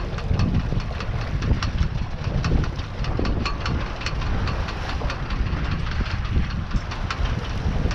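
Wind buffeting the microphone in a steady low rumble, with irregular splashes and taps of choppy water against the hull of a small sailboat under sail.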